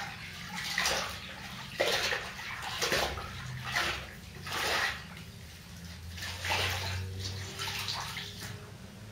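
A decorating brush swishing across the wall in about a dozen quick, irregular strokes, roughly one every half second to a second.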